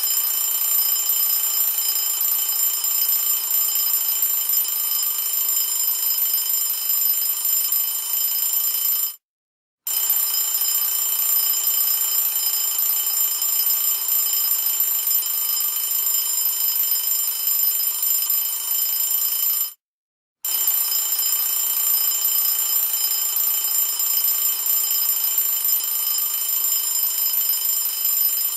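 Alarm clock ringing steadily and loudly, a continuous high ringing that breaks off for under a second twice, about nine and twenty seconds in, then starts again.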